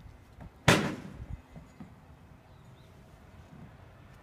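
A single sharp knock less than a second in, then a softer low thud: a child's shoe striking the boards of a wooden play set's climbing ramp.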